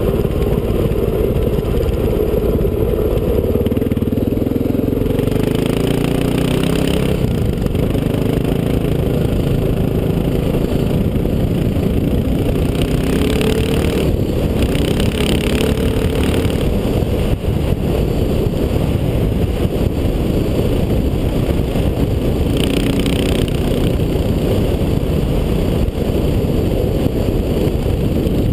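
Dirt bike engine running while riding along a gravel track, its pitch rising and falling with the throttle, over a constant low rumble.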